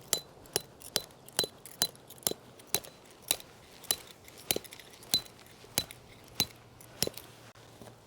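Hammer driving a steel tent stake into the ground: about fourteen sharp, ringing metallic strikes, roughly two a second, spacing out a little toward the end.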